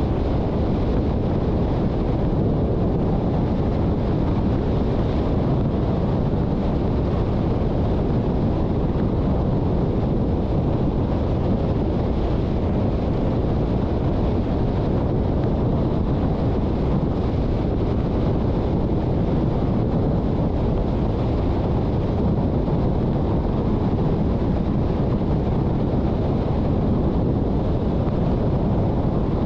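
Steady low rumble of a car driving: road and wind noise, even throughout with no distinct events.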